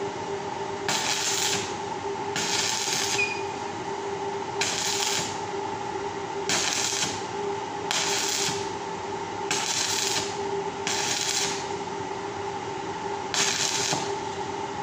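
Electric arc welding on a steel wire grill grate: a run of short tack welds, eight crackling bursts of under a second each, about one every one and a half seconds, over a steady hum.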